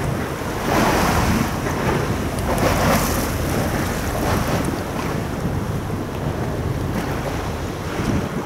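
Wind buffeting the microphone over the wash of water, with swells of rushing noise about one and three seconds in.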